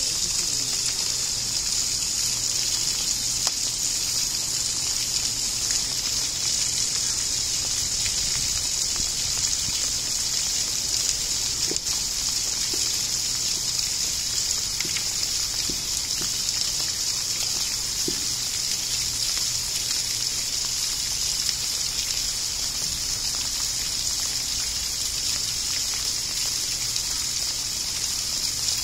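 Steady rush of running water, an even hiss that holds at the same level throughout, with a low steady hum underneath.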